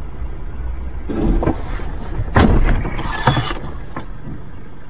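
A steady low road rumble inside a car. From about a second in it is broken by a loud rushing, crunching noise lasting a couple of seconds and loudest twice, as the car veers off the road into the snowbank.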